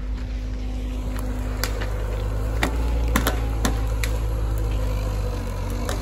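Diesel engine of a Liebherr rail-road excavator running steadily at work, with a scattering of sharp clicks and knocks over it.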